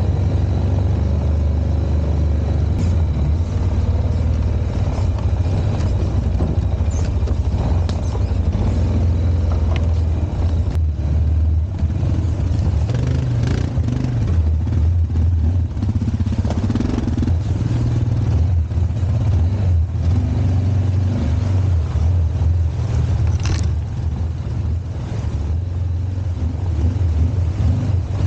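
ATV engine running steadily at trail speed, a loud low rumble, with a few sharp knocks as the machine rides over rough ground.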